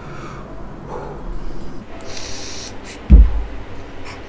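A short hiss of air drawn through a Voopoo Vinci X pod vape with its airflow wide open, then a hard exhale of vapour that blows onto the microphone as a loud low gust about three seconds in.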